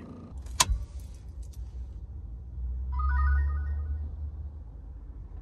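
A short electronic chime of a few quick stepping notes, like a ringtone or notification jingle, a little past the middle, after a sharp click about half a second in; a low steady rumble runs underneath.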